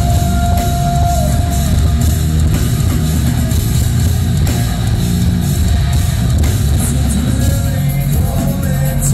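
Heavy metal band playing live: electric guitar, bass guitar and drum kit at full volume in a steady, continuous passage without vocals.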